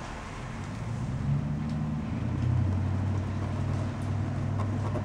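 A motor vehicle engine running: a low hum that grows louder about a second in and settles to a steadier, lower pitch after about two and a half seconds.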